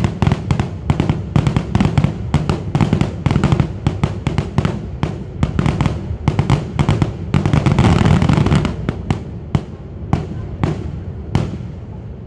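Fireworks display in its closing barrage: a rapid, dense run of bangs and crackles over a low rumble, loudest about eight seconds in, thinning out near the end.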